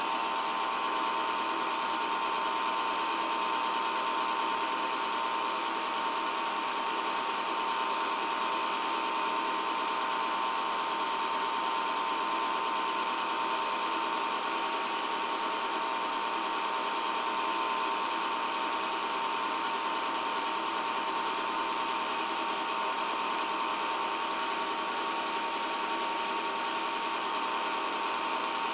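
8mm film projector running: a steady mechanical whir with a constant high whine, unchanging throughout.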